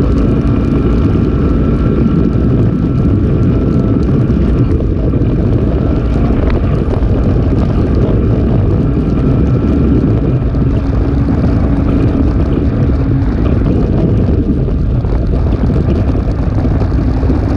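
Polaris RZR 570 side-by-side's single-cylinder engine running steadily under way, a loud, even drone with a faint steady whine over it.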